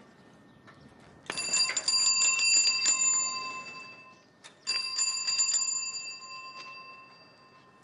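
A bicycle bell rung twice: each ring is a quick trill of strikes that rings on and fades away. The first starts about a second in, the second a little after halfway.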